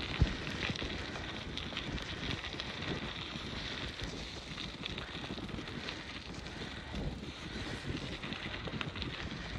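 Wind buffeting the microphone on a moving bicycle, over steady rolling noise with faint scattered rattles. One sharp knock comes just after the start.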